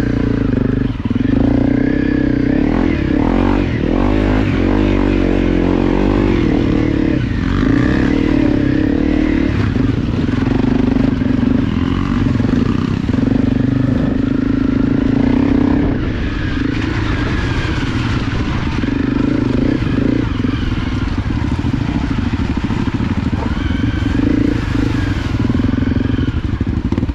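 Honda CRF250 trail bike's single-cylinder four-stroke engine pulling along a muddy track, its pitch rising and falling as the throttle is opened and shut.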